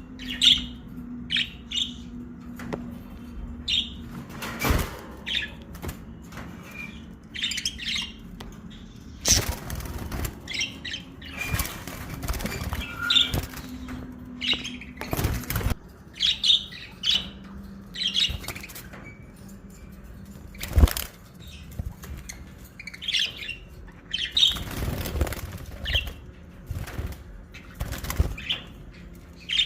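Fischer's lovebirds chirping in short, sharp calls, repeated irregularly, with several louder flaps and knocks among them.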